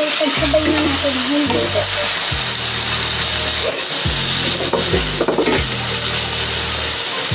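Pork steaks sizzling steadily in hot butter in a nonstick frying pan, with a metal fork and a slotted spatula scraping and pressing them against the pan. Background music with a deep bass line plays underneath.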